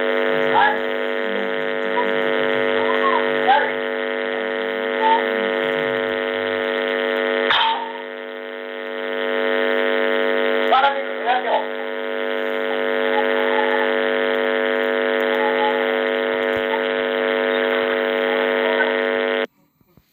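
Steady electrical buzz with many even overtones in a CCTV camera's audio, with faint voices coming through now and then; it cuts off abruptly near the end.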